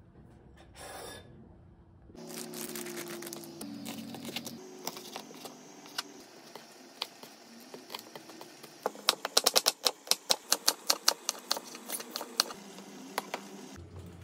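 Kitchen knife slicing squid on a wooden cutting board, beginning about two seconds in. It starts with scattered cuts, then breaks into a fast run of sharp knocks of the blade on the board.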